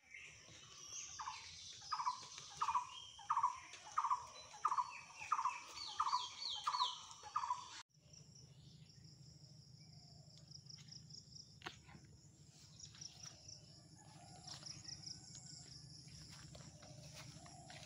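A bird calls a run of about ten short, falling notes, about one and a half a second. After a sudden cut about halfway through, an insect chorus trills steadily.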